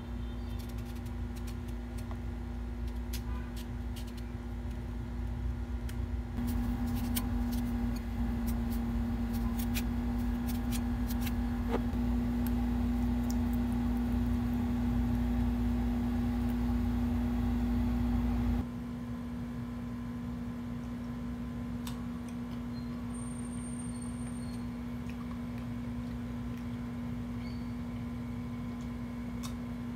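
Steady electric stand fan motor hum, louder for the first part and dropping down abruptly at about nineteen seconds. Scattered light clicks and taps come through over it in the first half.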